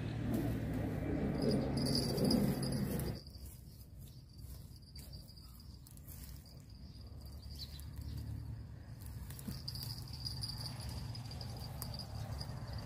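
An insect keeps up a steady high-pitched buzz. For the first three seconds a louder low rushing noise lies over it and then cuts off suddenly.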